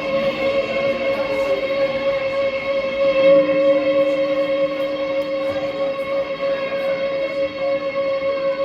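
Live noise-music drone: several steady overlapping tones held over a rough hiss. A lower tone swells in about three seconds in and fades near six seconds.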